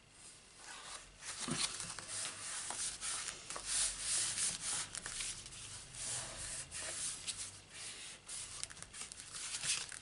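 Card stock handled by hand on a craft mat: card panels slid, rustled and rubbed flat with the palms, with small scrapes and taps.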